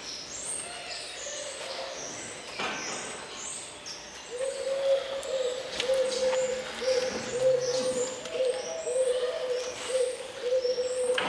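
Birds in a barn: a pigeon or dove cooing over and over from about four seconds in, with small birds chirping high in the background throughout.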